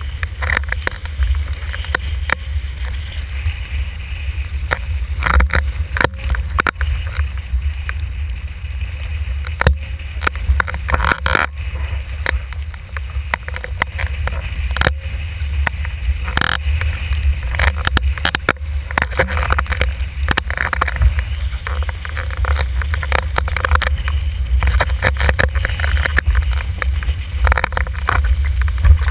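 Windsurf board planing fast over choppy water with its sail rig: a steady low rumble of wind buffeting the microphone, with frequent irregular slaps and splashes of water and spray against the board and rig.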